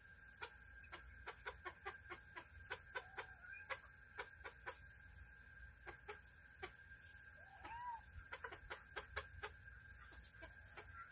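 Serama chickens pecking: quick, irregular beak taps, several a second, on the feed bowl and ground. There is one soft cluck about eight seconds in.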